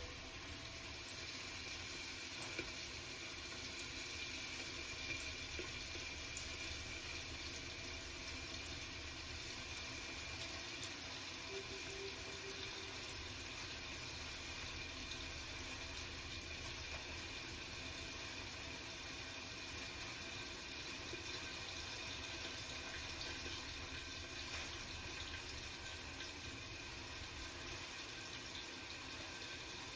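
Potatoes frying in hot oil: a steady sizzle with frequent small crackles and pops.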